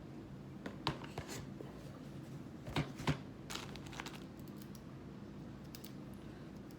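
Gun-cleaning supplies being handled and sorted: packaging rustling and crinkling, with a few sharp clicks and taps, the loudest about a second in and around three seconds in, over a steady low hum.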